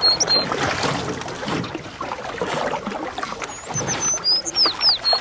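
Birds chirping, a quick run of short falling whistled notes near the start and again about three and a half seconds in, over a steady sound of running water.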